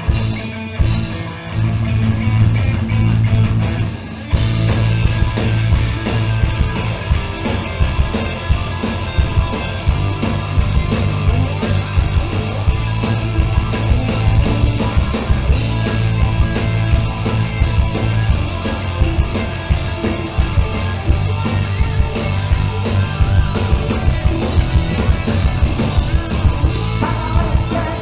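Punk rock band playing live on stage with electric guitars, bass and drum kit: a sparser guitar-led opening, then the full band with drums comes in about four seconds in and drives on steadily. A singer's voice comes in near the end.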